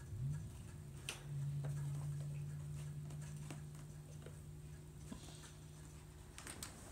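Small kitten paws pattering and clicking on a hardwood floor and wire crate, with scattered light taps, a sharper one about a second in and a quick cluster near the end. Under them a low steady hum swells about a second in and fades toward the end.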